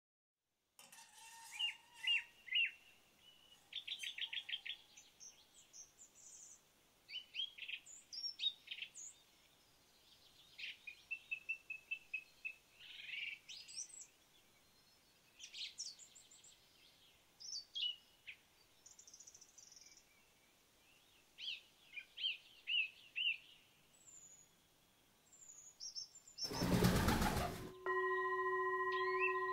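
Several songbirds chirping and singing in short phrases with quiet gaps between. Near the end comes a loud, brief rushing noise, then a steady ringing tone at several pitches sets in.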